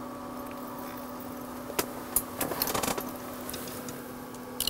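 Handling noise from a small ice-fishing reel on a winter feeder rod: a few sharp clicks and a short rustle as the reel and its drag are worked while a hooked bream is brought up. A steady low hum runs underneath.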